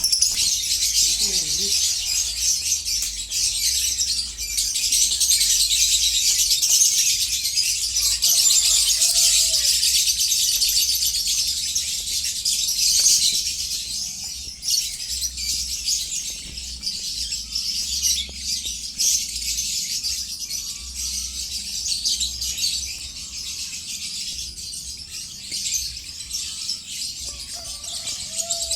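Many lovebirds chattering together in a dense, unbroken stream of high-pitched chirps and squeaks, loudest through the first half and easing slightly after about 13 seconds.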